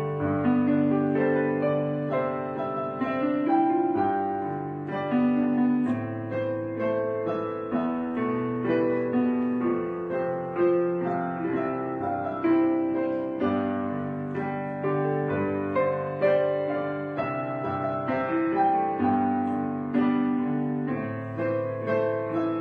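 Piano music: a melody of held notes that change about once a second over sustained low bass notes.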